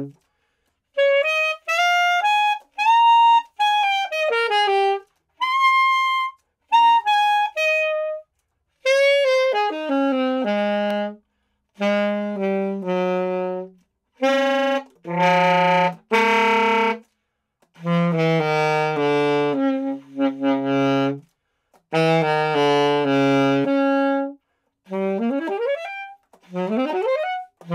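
Japanese-made Vito student alto saxophone, the same horn as a Yamaha YAS-23, played solo: a series of melodic phrases with short pauses between them, ending with a few quick rising runs.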